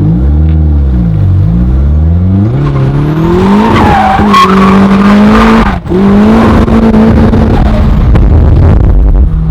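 Turbocharged 1.6-litre Mazda Miata four-cylinder revving hard under load. Its pitch swells and falls once, climbs over the next few seconds and holds high. It cuts out sharply for an instant about six seconds in, then pulls high again.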